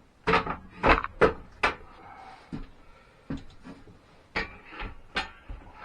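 A series of sharp wooden knocks, four quick hard ones in the first two seconds, then lighter ones about every half to one second: a chisel being driven by hand to cut a rabbet in lumber.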